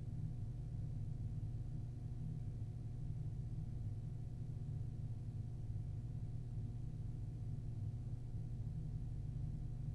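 Steady low hum with faint hiss: the room tone of an empty interrogation room as picked up by its recording system.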